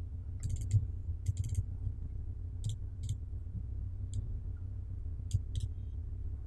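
Computer mouse clicking: about ten short sharp clicks spread irregularly, some in quick pairs, over a steady low hum.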